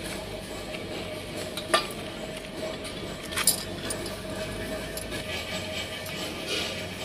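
Bolts and steel parts of a power weeder's handle mount clinking as they are handled and fitted: two sharp metal clinks about two and three and a half seconds in, over a steady background tone.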